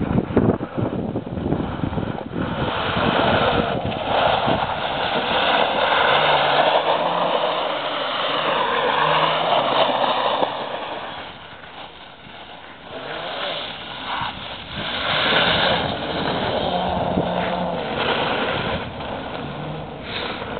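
Quad bike engine revving up and down as it spins and drifts on loose gravel, with its tyres spraying grit. It is loudest as the bike passes close, drops away about twelve seconds in, then rises again.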